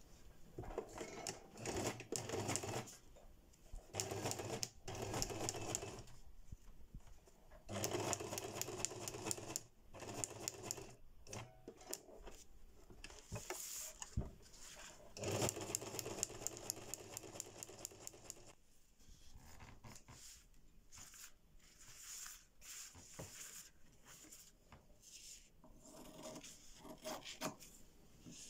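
Electric household sewing machine stitching fabric in several runs of a few seconds each, stopping and starting between them. In the last part, quieter short snips of scissors cutting fabric.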